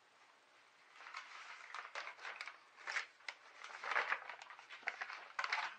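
Sheets of paper rustling and shuffling as they are leafed through, starting about a second in, with irregular crackles and light taps.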